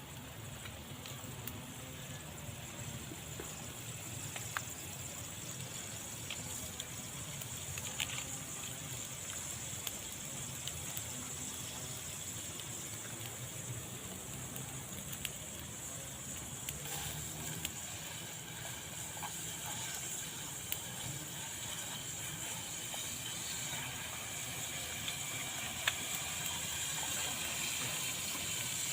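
Oil sizzling steadily in a frying pan, with a few small pops.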